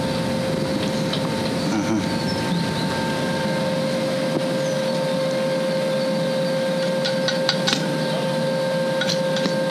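Electric arc welding iron: a steady sizzle from the arc with a steady whine from the welding machine. Sharp crackling pops come in about seven seconds in and grow more frequent near the end.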